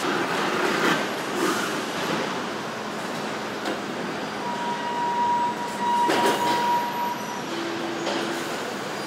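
Car assembly plant din: a steady noisy background of line machinery with a few knocks. A steady electronic tone sounds for about two and a half seconds from about four and a half seconds in, followed by a shorter, lower tone.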